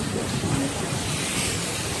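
Steady rushing background noise with no distinct events, typical of open-air roadside ambience.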